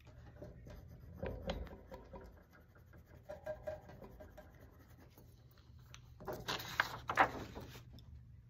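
A white colored pencil scratching softly across paper in short shading strokes, with a louder rustle of handling about six to seven seconds in.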